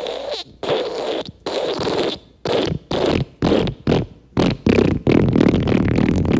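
Cartoon-style wet fart sound effect: a quick string of about ten short, noisy bursts with brief gaps between them. About five seconds in, a continuous, louder stretch begins.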